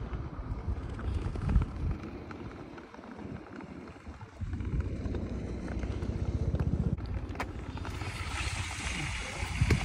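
Nordic touring skate blades gliding over clear lake ice, a continuous low rumbling hiss with wind buffeting the microphone. The hiss grows brighter about eight seconds in.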